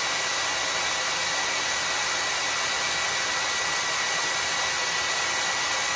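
Revlon handheld hair dryer running steadily: a constant rush of blown air with a thin, steady whine.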